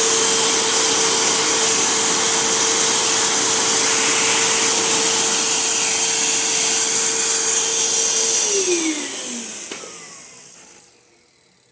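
Vacuum cleaner running steadily with a motor whine, switched off about eight and a half seconds in, its whine falling in pitch as the motor winds down, used to clean dust from a laptop cooling fan.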